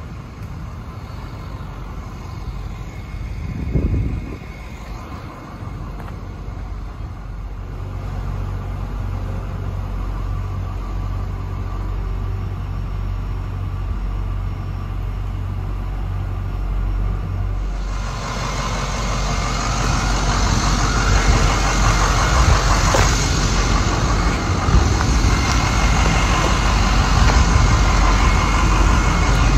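Forklift engine running as it carries pallets to the box truck: a steady low engine hum, joined about eighteen seconds in by a louder, even rushing noise.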